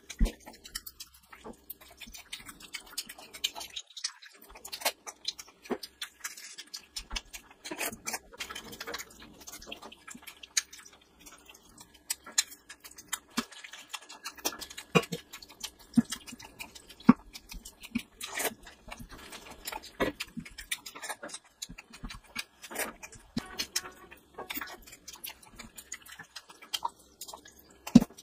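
Close-miked chewing and wet lip-smacking of a person eating oily curried meat by hand: many irregular sharp, wet mouth clicks.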